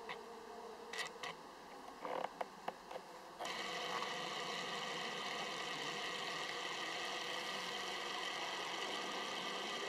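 Tamron 90mm F2.8 Di macro lens autofocus drive. A few short clicks and brief buzzes come first. About a third of the way in a steady whirring starts and runs on as the lens hunts for focus without locking.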